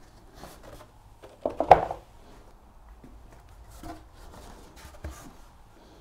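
Wooden knocks and rubbing as a staircase string with its treads attached is lifted, turned over and set down on a workbench, the loudest clatter about a second and a half in.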